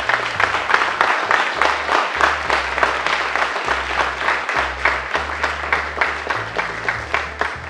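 Audience applauding steadily, dying down near the end, over low background music bass notes.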